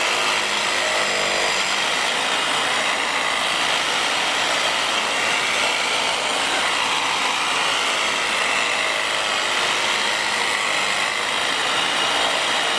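Corded electric hand saw running steadily, its reciprocating blade cutting through a tree branch while being pushed hard into the wood.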